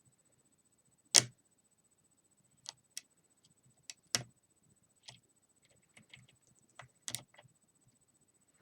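Lock pick and tension tool clicking against the pins and keyway of a small Master Lock padlock during single-pin picking: a run of sharp, irregular metallic clicks, the loudest about a second in.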